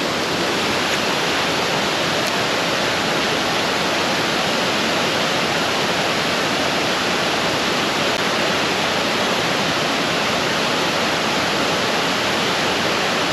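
Fast-flowing creek water rushing steadily, an even, unbroken noise of white water.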